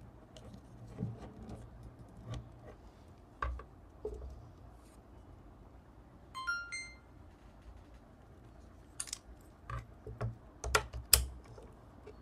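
Sharp plastic clicks and knocks from an Insta360 Ace Pro action camera and its protective frame being handled on a mini tripod. About six and a half seconds in, the camera plays a short rising three-note electronic chime. Two loud clicks near the end are the loudest sounds.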